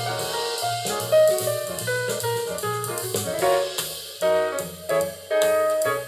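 Instrumental jazz with piano and drums, played back from a cassette on a Vector Research VCX-200 stereo cassette deck.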